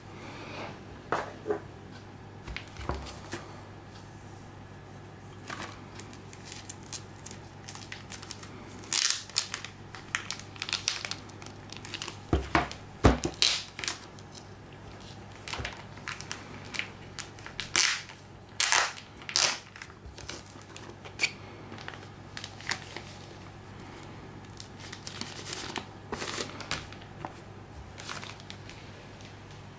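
Plastic packaging crinkling and rustling under gloved hands, in scattered irregular bursts with light clicks and taps. The loudest crackle comes about halfway through, over a steady low hum.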